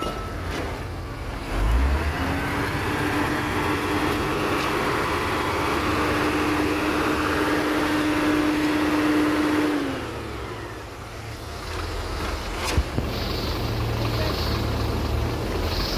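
A heavy engine rises in speed about two seconds in and runs steadily with a constant whine for about eight seconds, then drops back about ten seconds in.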